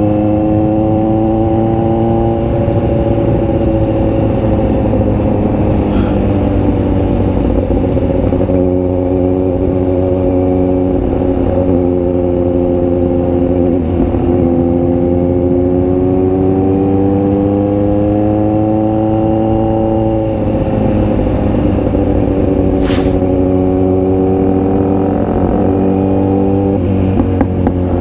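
Kawasaki Z900SE's inline-four engine running at a steady cruise. Its note climbs slowly, then drops off about twenty seconds in and settles again. There is a single sharp click a few seconds after the drop.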